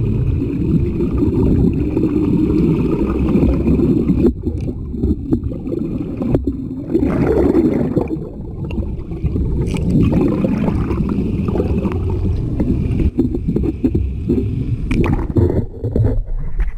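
Muffled, low rushing and gurgling of water, as heard by a camera held underwater in its waterproof housing. The sound changes near the end, when the camera comes back up above the surface.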